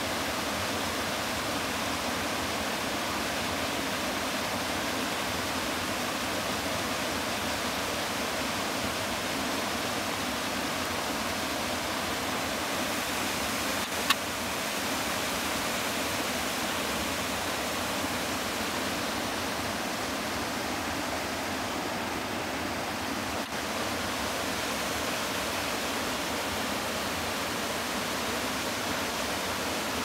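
Small waterfall on a stream, a steady, even rush of falling water. A single sharp click comes about halfway through.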